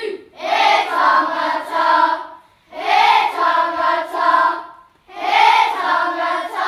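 A group of children singing together in unison in three phrases of about two seconds each, with short breaks between them.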